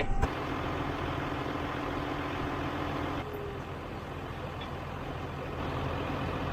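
Vehicle engine running steadily, a farm tractor or truck, with an abrupt change in its tone about three seconds in.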